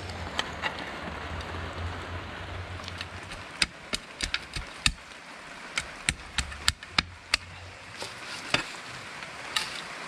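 Shovel blade chopping and scraping into damp soil, filling in around a newly planted fir sapling: a string of irregular sharp knocks and scrapes over a steady background hiss.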